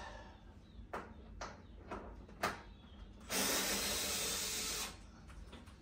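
A few light clicks and taps, then a cordless electric screwdriver runs steadily for about a second and a half, backing out a screw that holds the plastic body of a Razor SX500 electric dirt bike, and stops abruptly.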